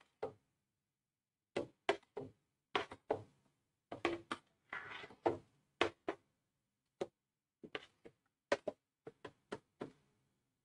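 Plastic spatula knocking and scraping against the side of a stainless steel pot while stirring plantain moi moi batter: a string of about twenty short, irregular knocks and clicks.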